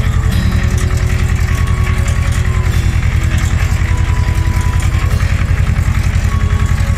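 Ursus C-330M tractor's two-cylinder diesel engine running at a steady speed as the tractor drives across a field: a loud, fast, even low chugging, heard from the driver's seat.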